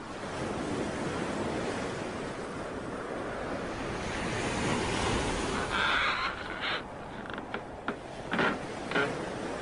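Wind rushing over the microphone, a steady noise, with a few short bumps in the second half.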